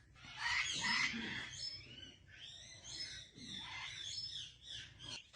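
Parrot chattering in a hoarse, breathy voice: several short calls with brief gaps between them.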